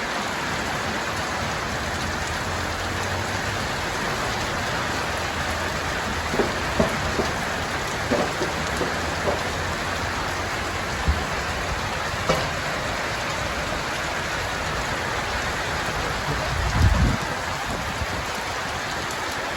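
Heavy rain falling steadily, a dense even hiss, with a few light knocks and a low thump near the end.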